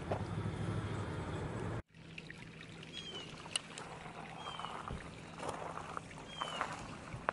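Outdoor walking sound: a low wind rumble on the microphone, which cuts off suddenly about two seconds in. After that a small bird gives a short, descending whistle three times, over faint footsteps and rustling.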